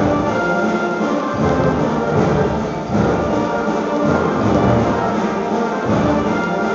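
High school concert band playing a piece live: winds, brass and mallet percussion together, steady and loud.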